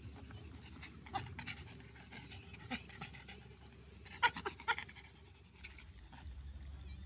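Dogs panting, with a few short whimpers, the loudest cluster about four seconds in.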